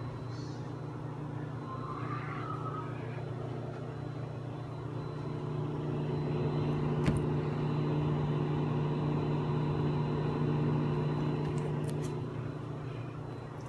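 Samsung microwave oven running: a steady electrical hum with its fan noise, heating a bag of popcorn before any kernels pop. There is one sharp click about seven seconds in.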